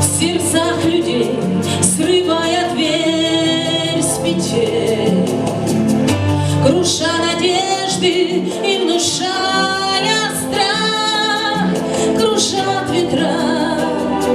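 A song with a female singing voice over an instrumental backing track, with a steady beat.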